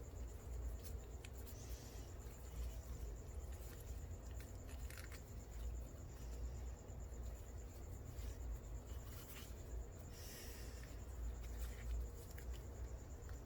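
Faint rubbing and scattered light clicks of hand work: Teflon sealing rings and a ring resizer tool being worked onto a 4L60E transmission drum, over a steady low hum.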